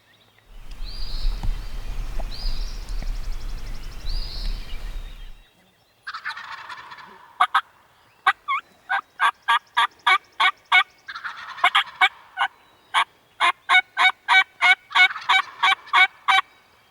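Wild turkey toms gobbling repeatedly off the roost at dawn. For the first five seconds a low rumble on the microphone sits under fainter calls, then the gobbling and a fast series of sharp repeated notes carry on to near the end.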